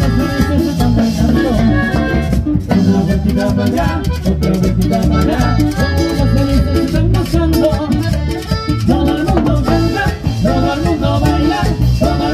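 Live band playing Latin dance music: an accordion carries the melody over acoustic guitar, electric bass and timbales keeping a steady beat.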